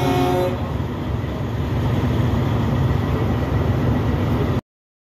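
Truck horn sounding a chord that stops about half a second in, over the steady low rumble of diesel semi-truck engines running. The sound cuts off suddenly near the end.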